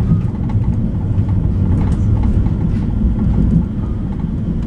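Stockholm A35 tram running, heard from inside the car: a steady low rumble of wheels on rail and running gear.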